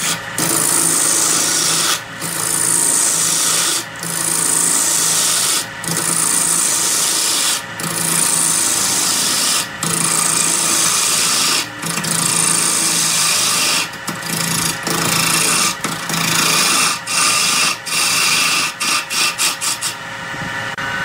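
A wood lathe spinning a workpiece while a tool is worked against the wood, giving a rasping hiss in strokes about two seconds long with short breaks between them. Over the last several seconds the strokes come shorter and quicker.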